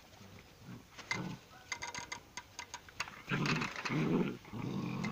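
Dogs play-fighting: a few light clicks and scuffles, then low growling from about three seconds in.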